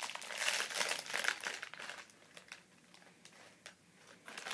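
A small plastic snack bag of baked crisps being pulled open and crinkled in the hands, busiest in the first two seconds, then a few quieter rustles and crackles.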